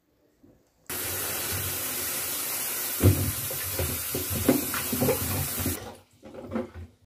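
Kitchen tap running steadily into a stainless steel sink as peeled plantains are rinsed, with uneven knocks and clunks as the plantains are handled. The water starts about a second in and is shut off sharply just before the end, followed by a few faint knocks.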